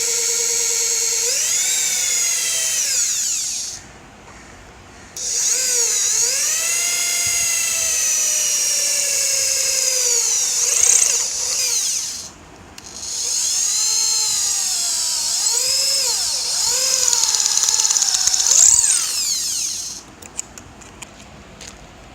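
Electric drill boring holes in a stainless steel plate, run three times with short pauses; the motor's whine sags in pitch and recovers as the bit bites and frees.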